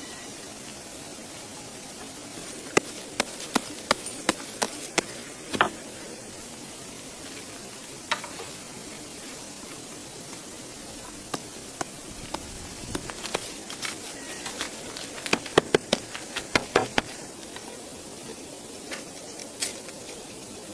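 Sharp clicks and snaps over a steady hiss, some single and some in quick clusters, with the busiest runs about three to five seconds in and again about fifteen to seventeen seconds in.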